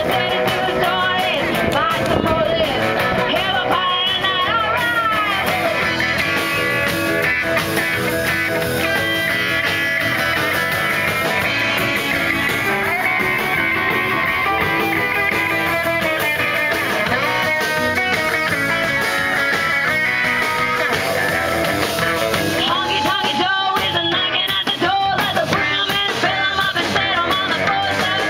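Live blues band playing: guitar lines with a voice singing over the band, loud and unbroken.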